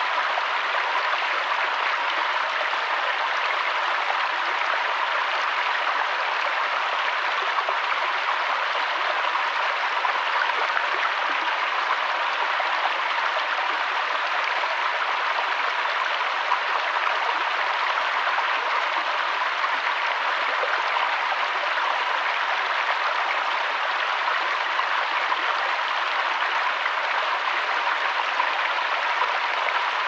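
Small rocky stream flowing over stones and low cascades: a steady rush of running water.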